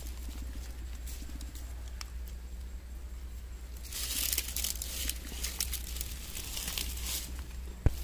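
Plastic bag crinkling and rustling with many small crackles, starting about halfway through; a single sharp click just before the end.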